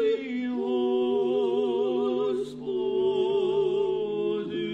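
A small group of cantors singing Orthodox liturgical chant in several parts, holding long notes with vibrato and moving to a new chord about two and a half seconds in.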